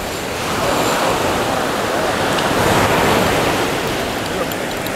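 Sea surf breaking and washing up a sandy beach: a steady rushing noise that swells and eases a little.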